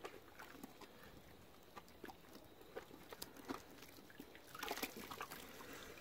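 Faint wet squelching and small splashes as a soaked beaver hide is squeezed and rubbed in a tub of soapy water, with a louder stretch of splashing about four and a half seconds in.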